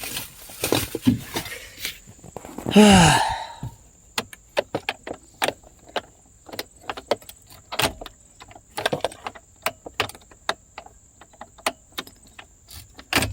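Keys jangling and clicking in irregular little strikes. About three seconds in there is a short, loud, pitched cry whose pitch bends.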